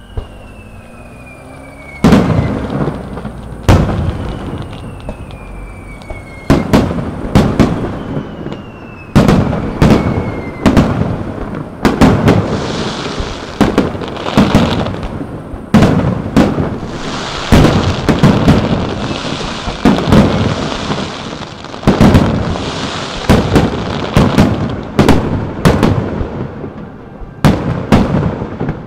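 Aerial fireworks shells bursting in quick succession: loud bangs from about two seconds in, often several within a second or two, with crackle between them. Three high whistles falling in pitch sound in the first ten seconds.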